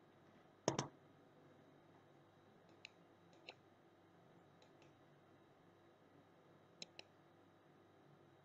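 A few computer mouse clicks over near silence, some in quick pairs, the loudest about a second in.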